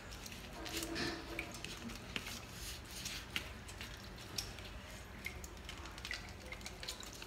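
Hands pressing and turning a wet, egg-dipped red snapper fillet in fish fry breading on a paper plate: faint squishing with soft scattered taps and rustles.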